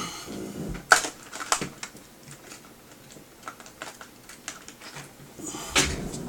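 Small plastic parts of a pair of LCD video glasses clicking and tapping as they are handled and pried apart, with scattered light clicks, two sharper ones about a second in, and a louder rustling scrape near the end.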